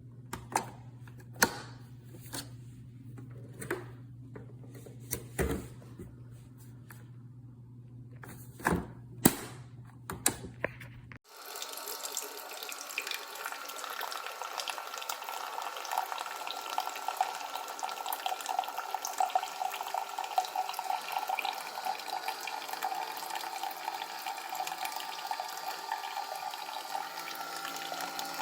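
A steady low hum with scattered sharp clicks and knocks, then, after an abrupt change about eleven seconds in, water running in a steady stream.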